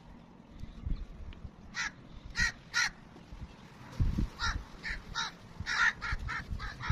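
Crows cawing: three caws about two seconds in, then a quicker run of about eight caws in the second half. A low thump about four seconds in.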